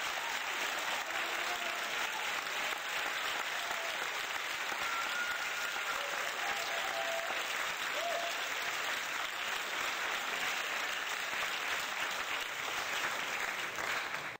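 Audience applause, dense and steady, with a few faint short pitched calls or whistles in the middle, cutting off abruptly at the end.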